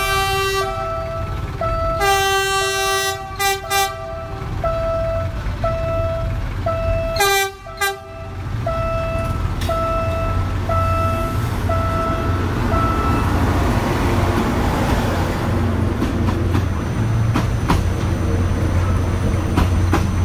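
PNR DHL 9000-class (INKA CC300) diesel locomotive horn: a blast at the start, a longer blast about two seconds in followed by three short toots, and another blast about seven seconds in. A level-crossing warning signal beeps about once a second until about two-thirds of the way through. Then the locomotive and its coach rumble past close by, with wheels clacking over the crossing.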